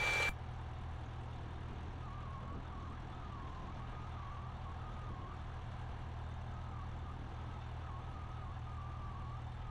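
Cessna 172S's four-cylinder Lycoming engine at taxi power, heard as a low, steady hum through the cockpit intercom audio, with a faint wavering whine from about two seconds in. A short burst of radio static at the very start.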